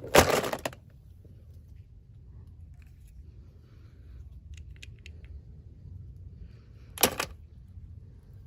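Hands handling an unboxing package: a short, loud burst of noise right at the start lasting about half a second, faint small clicks in the middle, and another short loud burst about seven seconds in.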